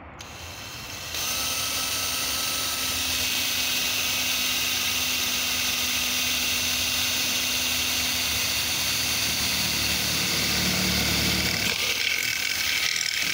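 Cordless drill running steadily, a twist bit boring through a metal awning pole; it starts about a second in and its note shifts near the end.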